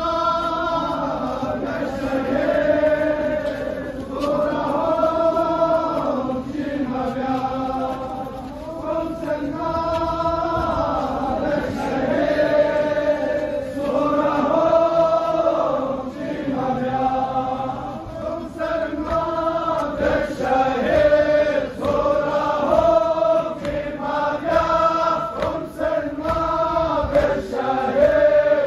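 A large crowd of men chanting in unison: a Muharram mourning chant sung in short repeated phrases, each about two seconds long, one after another.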